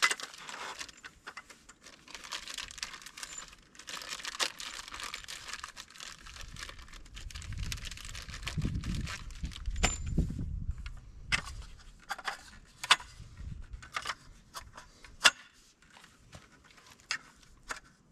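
Crinkling and rustling of plastic as the new assist rail is handled for the first few seconds, then a low rumbling handling noise, then a string of light clicks and taps.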